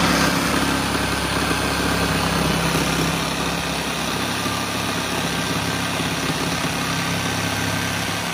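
Black+Decker corded jigsaw running, its blade sawing through a varnished wooden board: a steady motor hum under a dense rasp of the blade, which cuts off right at the end.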